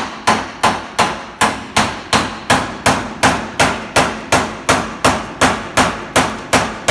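Hammer striking a chisel in quick, even blows, about three a second, driving against a stuck nail that holds the unit to the wall.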